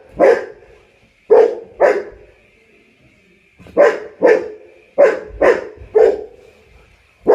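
A large dog barking excitedly in play while chasing a remote-control toy car: about nine loud, deep barks in quick pairs and threes, with short pauses between the groups.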